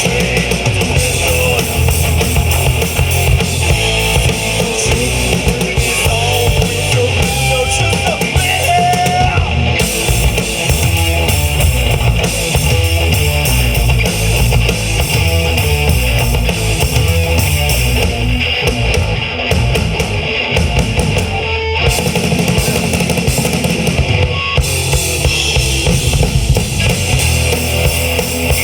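Rock band playing loud, heavy rock: a drum kit with a driving bass drum, distorted electric guitars and a bass guitar.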